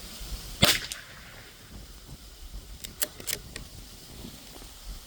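Winchester Xpert .22 LR bolt-action rifle firing a single shot, a short sharp crack, about half a second in. Around three seconds in come a few light clicks as the bolt is worked for the next round.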